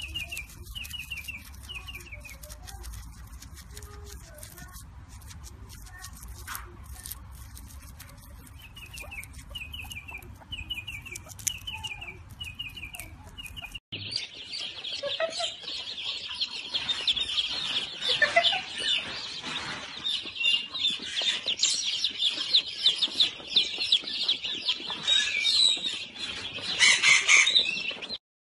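Chickens clucking and chirping. At first short high chirps come in quick runs over a low hum. About 14 seconds in the sound cuts abruptly to a louder, dense chorus of high calls.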